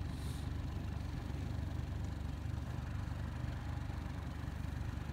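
Outboard motor on a Bass Tracker Classic XL bass boat idling steadily, a low even rumble.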